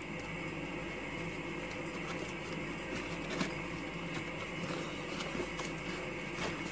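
Cordless handheld sewing machine running steadily: a continuous mechanical whir with scattered light clicks, one sharper click about three and a half seconds in.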